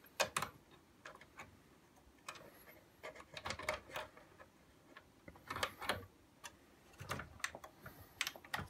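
Irregular light clicks and taps of a Victor Clavia boombox's plastic casing parts being handled and pressed together during reassembly.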